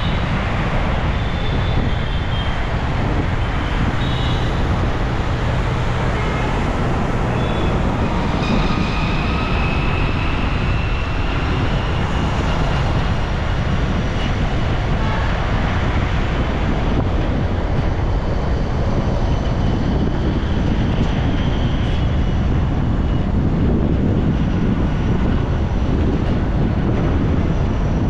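Steady road and traffic noise heard from a vehicle driving through city traffic: a continuous low rumble of tyres and engines, with a few brief high tones coming and going over it.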